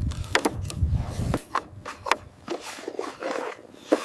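A series of sharp clicks and knocks, over a low rumble that cuts off suddenly about a second and a half in.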